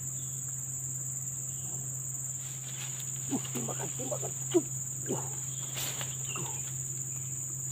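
Insects in the surrounding forest chirring in one steady, high-pitched drone that does not change, with a low steady hum underneath.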